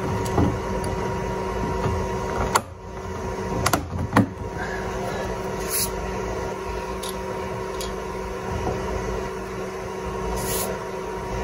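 A few sharp plastic clicks as an LED puddle light housing is pushed and snapped into the bottom edge of a car door, over a steady background hum.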